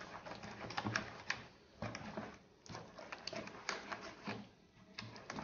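A spatula stirring a thick egg-yolk, ricotta and mascarpone cream in a bowl, with quick irregular clicks and scrapes against the bowl in bouts about once a second.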